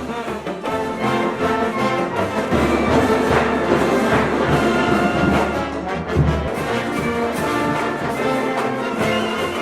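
Marching band brass playing loudly, trombones and trumpets holding chords over a low drum beat.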